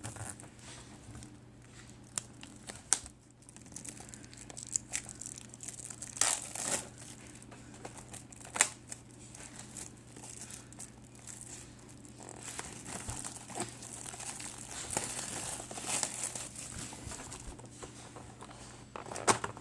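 Plastic shrink-wrap being torn and crumpled off a sealed trading card box: steady crinkling with sharp crackles, loudest about a third of the way in and again near the end.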